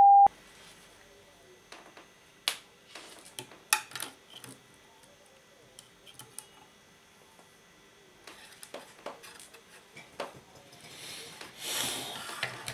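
A short censor bleep, one steady beep of about half a second, at the very start, cutting off a curse. After it come scattered small clicks and taps of hands handling wires and small parts of the clock radio on the bench, with a brief rustle near the end.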